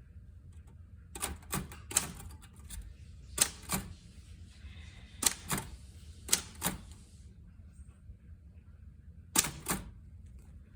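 Manual typewriter keys struck one at a time: a slow, uneven run of sharp clacks, mostly in close pairs, about a dozen in all.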